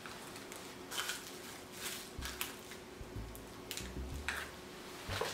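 Soft rustles and light clicks of small plastic packaging being handled: a plastic Easter-egg capsule and a clear plastic bag opened to get out a ring, with a few soft low bumps around the middle.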